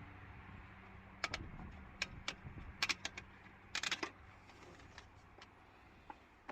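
A string of sharp clicks and clinks from tools and metal parts being handled while working under the hood, bunched together about three to four seconds in, over a faint low hum that fades early on.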